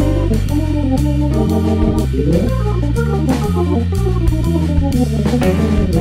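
Instrumental background music: held keyboard chords over a stepping bass line, with a steady beat.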